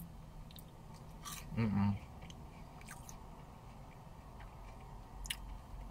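Close-up chewing and crunching on a seasoned fast-food chip dipped in zesty sauce, with soft crisp clicks now and then. About a second and a half in there is a short hummed 'mm' while he chews.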